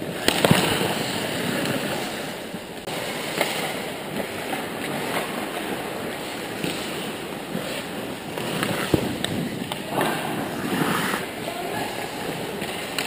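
Ice hockey being played on an indoor rink: a continuous scraping hiss of skates on the ice, broken by several sharp clacks of sticks and puck, the loudest about half a second in.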